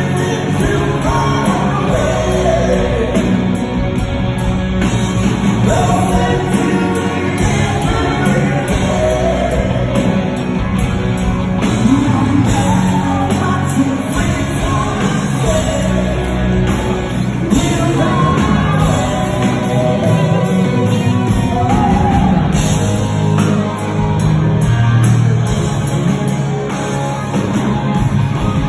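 Live rock band performing: a male lead vocal sung over electric guitars, bass guitar and drums.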